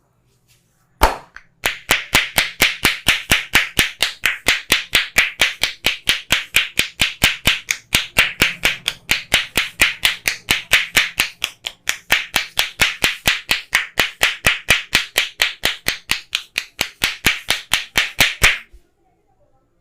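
Barber's hands slapping the client in rapid, even percussive massage strokes, about four a second, after a single sharp slap about a second in.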